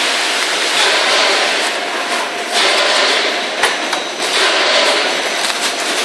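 Steady, loud running noise of vacuum packaging machinery, with a few sharp clicks as the plastic bag of lettuce is handled on the machine.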